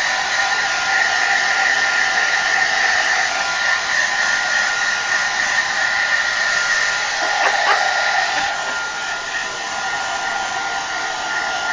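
Hand-held hairdryer running steadily: an even blowing hiss with a steady whine on top, easing a little about two-thirds of the way through.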